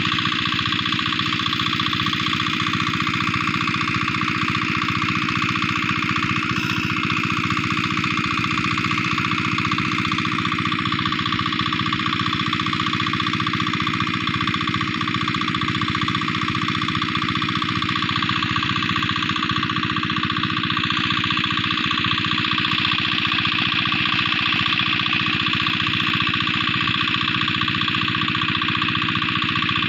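Water-cooled single-cylinder diesel engine running steadily under load, driving an irrigation water pump.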